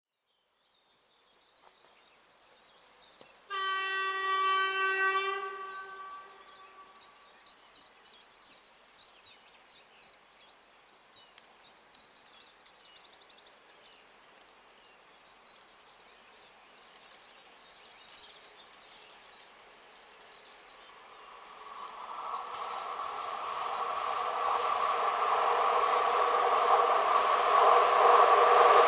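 PKP Cargo ET22 electric locomotive's horn gives one long blast of about two seconds, the Rp1 'attention' warning signal of an approaching train. About three-quarters of the way in, the oncoming container train's running noise starts to rise and grows steadily louder.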